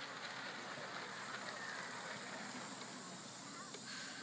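3½-inch gauge live steam model of an LMS Stanier 8F 2-8-0 locomotive running past on its track, a steady rushing hiss.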